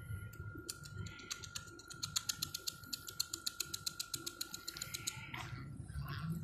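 A rapid, even run of sharp clicks, about eight a second, lasting about four seconds over a faint steady high whine.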